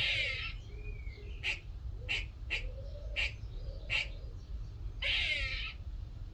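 Grey squirrel calling: a longer rasping call at the start and again about five seconds in, with about five short, sharp barks between them.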